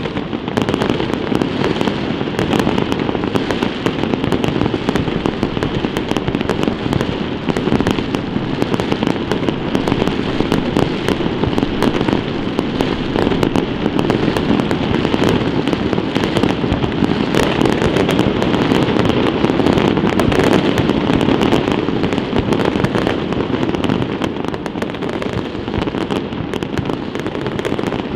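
A large fireworks display going off: a dense, continuous barrage of bangs and crackles that swells up at the very start and keeps on without a break.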